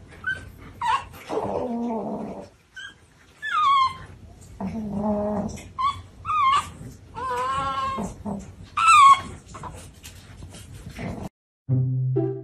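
Pug puppy whining and whimpering in a run of short, high-pitched cries that bend up and down, mixed with a few lower, drawn-out moans. Near the end the cries stop and music with chime-like notes starts.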